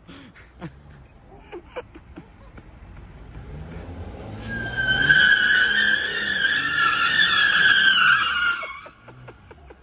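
Car doing a burnout: the engine revs up and the spinning tyres give a loud, sustained squeal from about four and a half seconds in, which stops suddenly about four seconds later. A few short sharp sounds come in the first two seconds.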